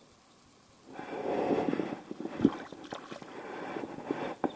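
Water sloshing and gurgling close to an action camera held at the river's surface, starting about a second in, with a few sharp knocks.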